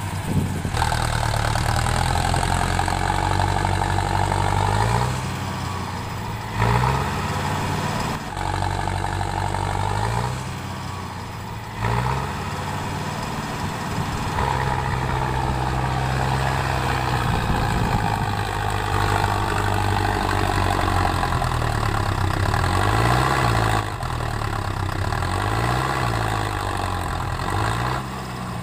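Mahindra Arjun Novo 605 DI-MS tractor's diesel engine running under load, its revs repeatedly rising and falling as it strains to pull a loaded trolley out of deep mud.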